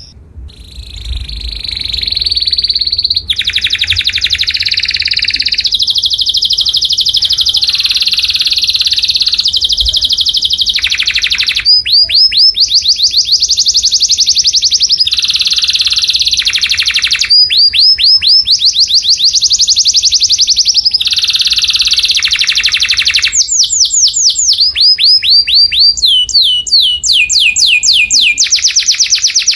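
Canary singing a long, loud song of rolling trills: runs of very fast repeated notes, each held for a second or more before switching abruptly to another pitch, with quick falling note sweeps toward the end.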